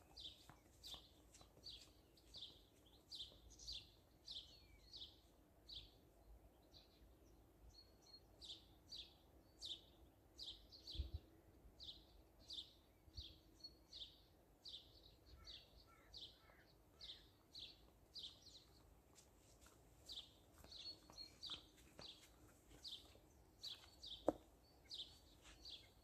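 A small bird chirping over and over, faintly, about two short high chirps a second. Near the end there is one sharp knock.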